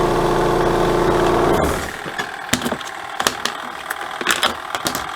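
Twin-tub washing machine's motor running with a steady hum that cuts off abruptly a little under two seconds in, followed by scattered light clicks and knocks.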